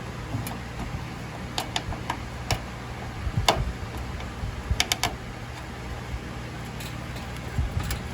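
Scattered sharp plastic clicks and taps as PC power cables and connectors are handled and pressed into place on the motherboard, with a quick cluster of clicks about five seconds in. A steady low hum runs underneath.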